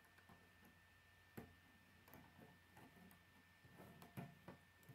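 Faint clicks and taps of plastic K'nex rods and connectors being snapped and pressed together: a handful of small clicks, the sharpest about a second and a half in and about four seconds in.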